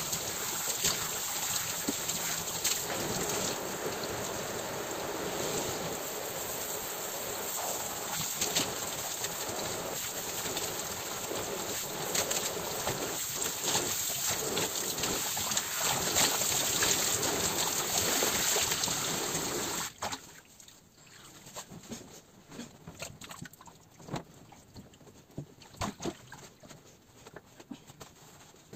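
Shower spray running steadily, then turned off suddenly about twenty seconds in, leaving scattered small knocks and clicks.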